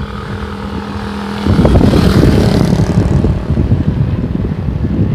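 Wind buffeting the microphone of a moving bicycle, a loud low rumble that starts abruptly about a second and a half in. Before it, a steady low hum.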